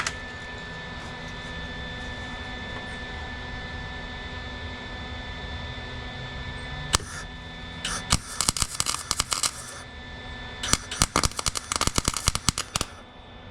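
MIG welder arc on steel patch panels, crackling in two short bursts of welding about eight and eleven seconds in, over a steady electrical hum. There is a lot of popping and snapping because of paint on the metal being welded.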